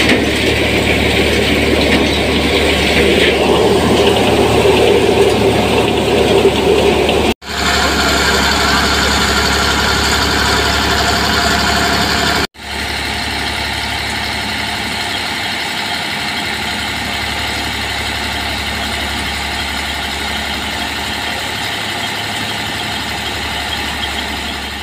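Eicher 548 tractor's three-cylinder diesel engine running steadily under load, driving a belt-driven threshing machine. The thresher's whirr and rattle are loudest in the first seven seconds. The sound drops out abruptly twice, about seven and twelve seconds in.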